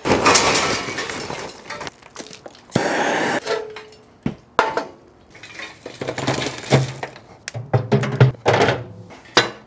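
Lit charcoal tipped from a steel chimney starter, clattering and crackling into the firebox. This is followed by a series of metal clanks and knocks as the wire cooking grate is set into the steel cooker.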